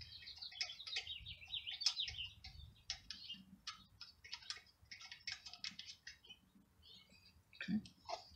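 Small songbirds chirping and twittering faintly, with a quick warbling phrase in the first couple of seconds and scattered short chirps after it.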